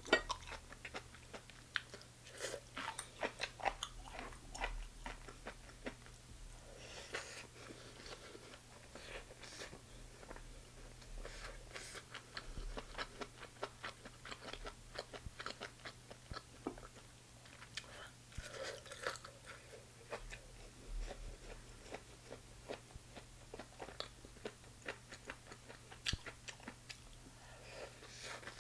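Close-miked chewing and biting of chicken gizzards: irregular crunches, sharp little clicks and wet mouth sounds. A faint steady low hum lies underneath.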